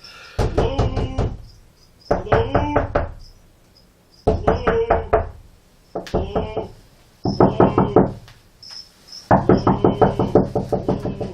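Rapid knocking on a door in six separate flurries, each about a second of quick raps with a ringing resonance, with short pauses between them.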